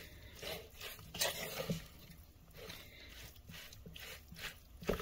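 Oiled, pickled eggplant strips being tossed and mixed by hand in a plastic bowl: soft, irregular wet squishing and rustling, a little louder about a second in and near the end.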